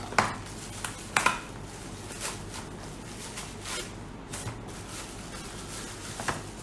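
Wrapping around coin tubes crinkling and rustling as it is pulled off by hand, in scattered short crackles, the loudest just after the start and about a second in.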